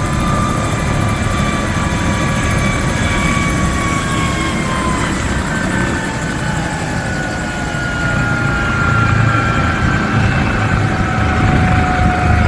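Bell 412EP twin-turbine helicopter running loud, its four-blade rotor giving a steady rapid thudding under a high turbine whine. About five seconds in the whine drops in pitch and then holds lower.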